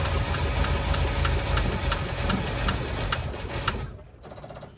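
Small-block engine of a 1985 Chevy C10 running, with a light regular tick about two to three times a second, then dying about four seconds in. It is starved of fuel: the carburetor is not getting enough fuel flow to keep it running for more than a few seconds.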